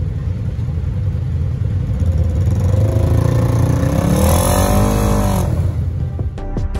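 Side-by-side UTV engine running while the machine sits bogged in deep mud, revving up about halfway through and winding back down. Outro music starts right at the end.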